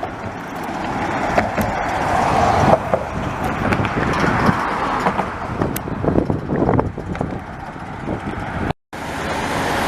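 Road traffic passing on a bridge, a steady rush of tyres and engines. The sound cuts out completely for an instant near the end.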